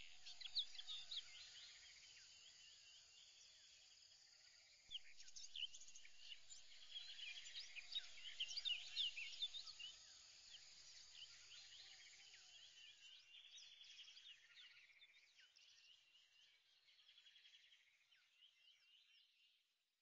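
Faint overlapping bird chirps, many short high calls at once. They pick up about five seconds in, are busiest for the next few seconds, then fade away near the end.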